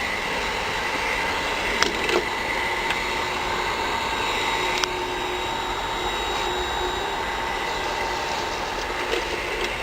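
Hot-air blower of a PVC welding machine's heat gun, driven by an AC motor, running steadily: a rush of blown air with a faint steady whine. A few small clicks come about two seconds in and again near five seconds.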